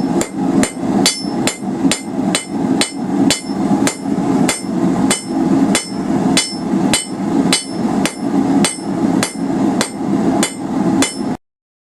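Cross-peen hammer striking a hot 3/8 in round steel bar on an anvil to flatten it. The blows come in a steady rhythm of about two to three a second, each with a short metallic ring, and stop abruptly near the end.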